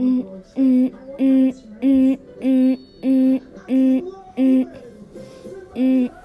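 A voice singing one short syllable over and over on the same note, like "la, la, la", about nine times at a little under two a second, with a brief pause before the last one.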